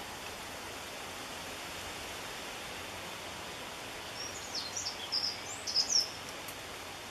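A quick run of short, high wren chirps from about four seconds in, loudest near the end of the run, over a steady hiss.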